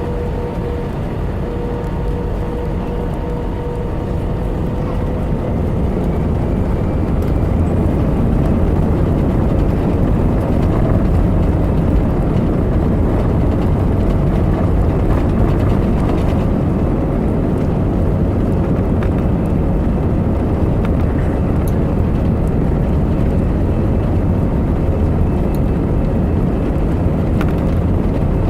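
Airbus A320-200 cabin noise: a loud, steady rumble of engines and rushing air with a faint steady hum through it, growing louder over the first several seconds and then holding level.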